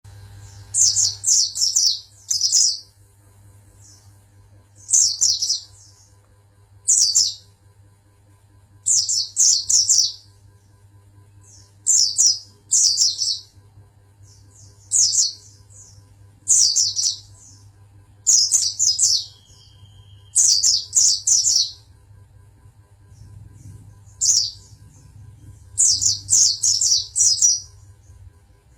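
White-eye (pleci) singing in short bursts of rapid, high chirping notes, a burst about every two seconds, sometimes two or three close together, over a steady low hum.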